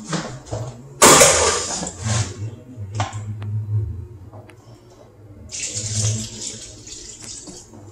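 Beef broth poured from a large can into a foil pan of tomato sauce: a steady splashing pour for about two seconds near the end. About a second in comes a louder, brief rush of noise lasting about a second.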